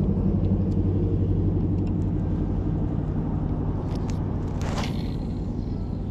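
A steady low mechanical rumble with a hum, fading slightly, and a brief scrape about three quarters of the way through.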